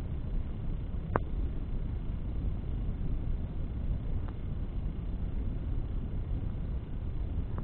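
Bonfire burning, with one sharp crackling pop about a second in and a fainter pop around four seconds, over a steady low rumble.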